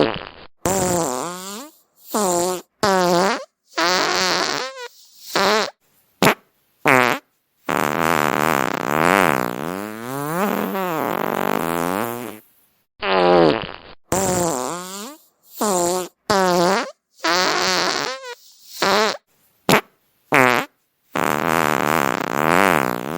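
A string of fart sounds, one after another with short silences between them: most are brief, a few last several seconds, and their pitch wobbles and bends.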